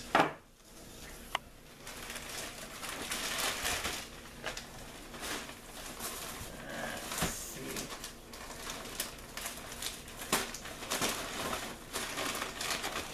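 Wrapping paper and plastic packing rustling and crinkling as a gift parcel is unwrapped in a cardboard box, with scattered crackles and clicks.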